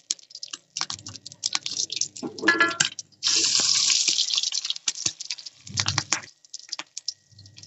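An egg deep-frying in hot oil in a wok, the oil crackling and spitting in quick pops. About three seconds in there is a loud, steady sizzle for about a second as the egg is turned over in the oil with a spatula.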